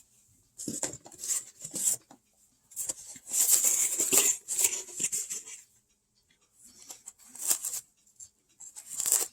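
Hands handling small hard plastic parts: irregular clicks, taps and rustling in bursts, loudest a few seconds in, with short pauses.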